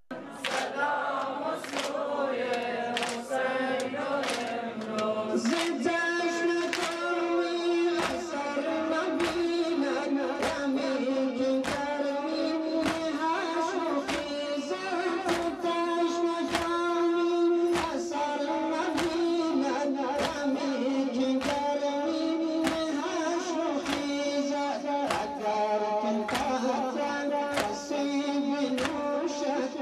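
A group of voices chanting a Muharram mourning elegy (noha) together, kept in time by sharp rhythmic beats about twice a second.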